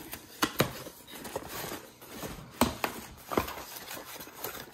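Box contents and plastic packaging being handled: a handful of sharp knocks and clicks, the loudest about half a second in and twice more in the middle, over light rustling.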